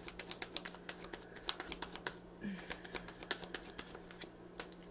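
A tarot deck being shuffled by hand: a rapid run of short card clicks and riffles that thins out in the second half as cards are drawn.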